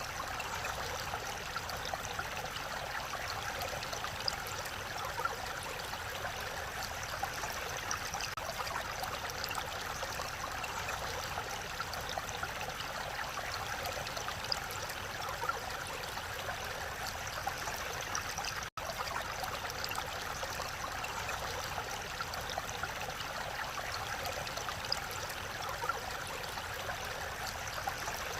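Mountain valley stream flowing steadily, an even rush of water with no let-up, broken only by a split-second gap about two-thirds of the way through.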